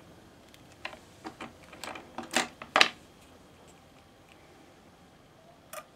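A string of small sharp clicks and knocks as test-lead banana plugs are pushed into the sockets of a circuit board, about half a dozen in the first three seconds, the loudest just before the three-second mark, then one more near the end.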